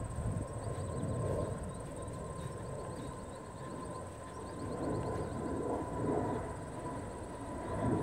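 Outdoor ambience: an uneven low rumble and rustle that swells and fades, under a steady high-pitched drone and a few faint high chirps.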